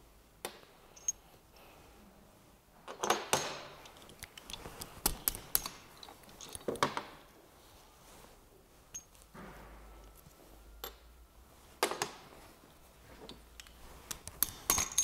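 Scattered metallic clinks and knocks as an engine's crankshaft main bearing cap and its bolts are handled and set back on the block over the crankshaft.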